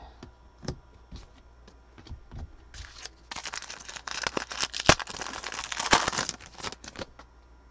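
Foil wrapper of a football trading-card pack being torn open and crinkled: a dense crackling rustle from about three seconds in until near the end, with a couple of sharp snaps. Before it, a few light clicks of cards being handled.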